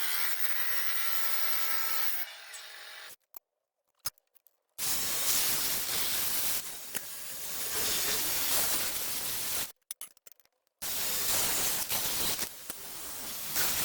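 Hand tool rasping steadily on cut trunking or rail, in long stretches broken twice by abrupt cuts to silence. The opening seconds carry on a pitched, ringing sawing sound.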